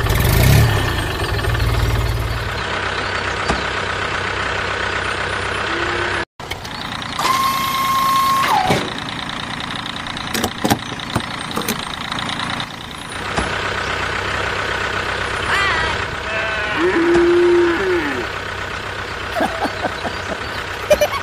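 Truck engine running steadily, with a heavier rumble for the first couple of seconds. The sound cuts out briefly about six seconds in. A held horn-like tone sounds around eight seconds, and a lower one a little past seventeen seconds.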